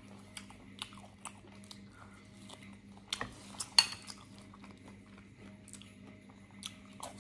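A person chewing a mouthful of braised beef off the bone, with soft mouth clicks, while chopsticks tap and click against the dishes. The sharpest sound is one ringing clink about halfway through.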